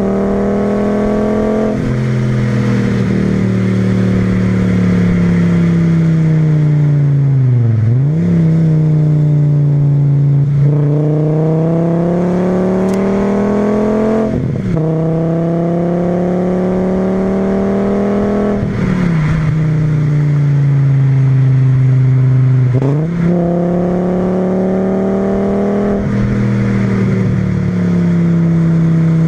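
VW VR5 20V five-cylinder engine pulling under hard driving, breathing through a K&N panel filter and exhausting through a Milltek resonator and straight-through 2.25-inch pipe. The engine note climbs and falls in long sweeps over several seconds, broken by sudden pitch drops and jumps about every four seconds, as at gear changes.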